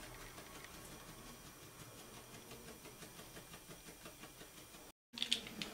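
Faint room hiss while a tube of 3D fabric paint is squeezed out with no clear sound of its own. About five seconds in the sound cuts out briefly, then a few faint short ticks and rustles follow.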